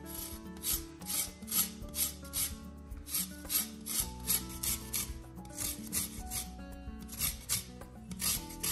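Lemon rind being grated on a fine handheld grater: a quick run of rasping strokes, about two or three a second, with brief pauses between runs, over soft background music.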